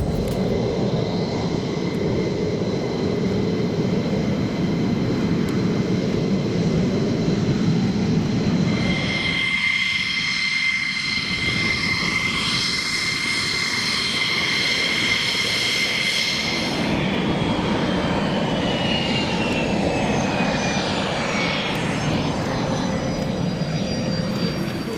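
Jet aircraft engine running with a steady rushing noise and a high whine. The whine holds steady for several seconds mid-way, then glides down in pitch over the last several seconds.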